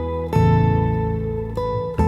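Acoustic guitar music: plucked notes ringing out, with a new note struck about a third of a second in and another near the end.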